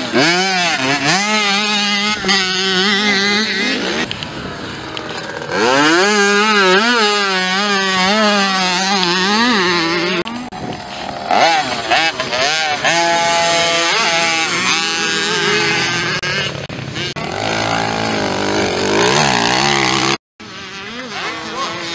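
Small two-stroke youth motocross bikes revving hard and rising and falling in pitch as they accelerate and shift through the corners, one bike passing after another. The engine sound breaks off briefly near the end.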